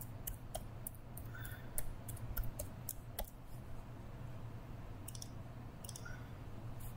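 Irregular clicks of a computer mouse and keyboard, thickest in the first three seconds, with a few more around five to six seconds in.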